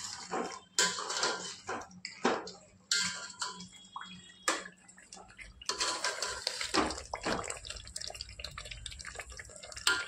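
Water splashing and running, broken by irregular knocks and splashes for the first few seconds, then running more steadily from about six seconds in.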